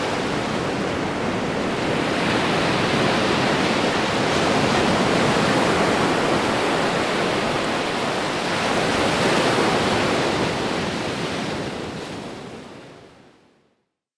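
Ocean waves washing in a dense, steady rush, swelling gently twice, then fading out to silence in the last few seconds.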